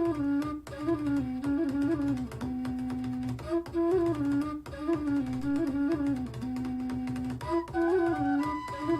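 Instrumental music, a melody repeating a short phrase about every four seconds over a pulsing bass line, played back through a small portable Bluetooth speaker for a sound test.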